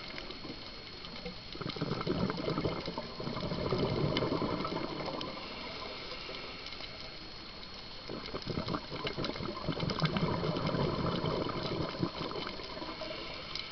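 A scuba diver breathing through a regulator underwater: two long bursts of exhaled bubbles rushing and gurgling, starting about a second and a half in and again about eight seconds in, with quieter stretches between.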